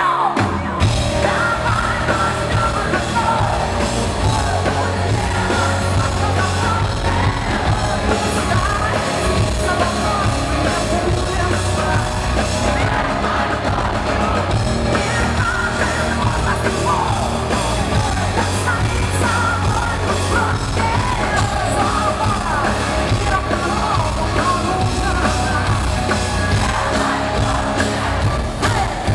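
A rock band playing live and loud, with electric guitars, bass guitar and drums, and a woman singing and yelling the vocal line into the microphone.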